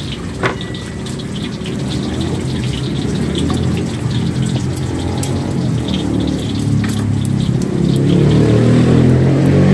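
A motor-vehicle engine rumbling and growing louder toward the end as it passes close by, over steady traffic noise with scattered light clicks.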